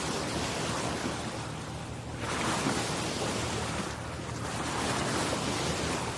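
Surf breaking on a sandy beach, a steady wash of waves that swells twice, about two seconds in and again near the end, with some wind.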